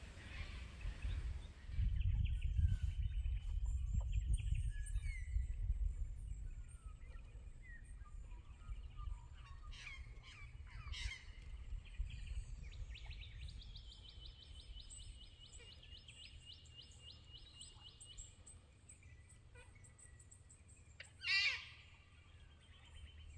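Wild birds calling over a low rumble: scattered chirps and calls, a rapid run of repeated high notes for about five seconds in the middle, and one loud wavering call near the end. The rumble is strongest in the first few seconds, then eases.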